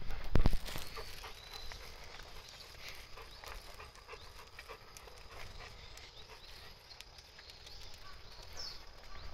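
Footsteps and a leashed dog's paws on a paved road: a few heavy thumps at the very start, then light scattered steps and clicks on the asphalt.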